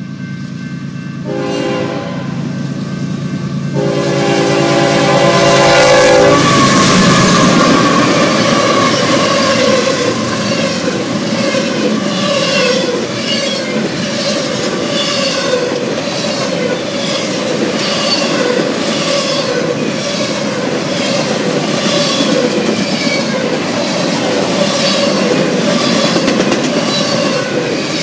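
Freight train's diesel locomotives approaching a grade crossing. They sound a short horn blast and then a long one, the end of the crossing signal. The locomotives then pass, and the train's cars roll by with a steady clickety-clack of wheels over rail joints, about once a second, and a wavering wheel squeal.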